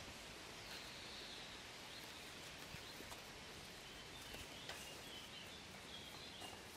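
Faint outdoor background noise with a few faint, high bird chirps about a second in and again later, and occasional light ticks and rustles.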